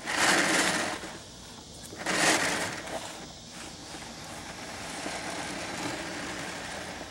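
Sewer inspection camera's push cable being fed down a pipe: two loud scraping rushes about two seconds apart, then a softer steady rubbing.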